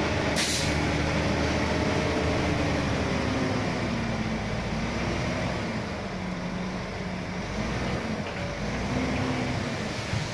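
Hyundai dump truck's diesel engine running under load while the hydraulic hoist raises the loaded bed, its pitch wavering up and down. A brief hiss comes about half a second in.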